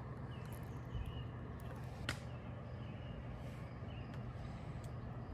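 A few light clicks and taps as sauce is squeezed from a plastic bottle and spread with a knife onto bread in cast iron pie irons, over a steady low hum and short high chirps now and then.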